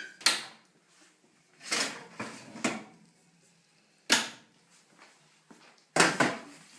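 Kitchen clatter as a pan of cooking chicken is taken out to be turned: a handful of sharp knocks and clanks, a second or two apart.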